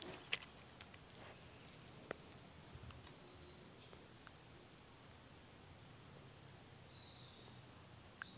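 Faint high insect trill running in repeated pulses, with a few short rising chirps and a couple of sharp clicks, the loudest just after the start.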